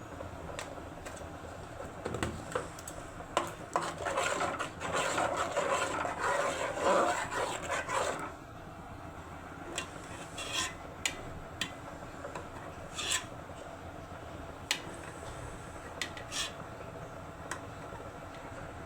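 Spoon stirring and scraping in a cooking pot of sauce, busy and continuous for the first several seconds, then a few separate clicks and taps of utensil on pot.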